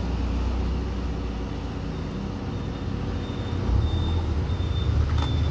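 Car engine running with a low rumble that grows louder about two-thirds of the way in. Faint short high beeps repeat about twice a second through the second half.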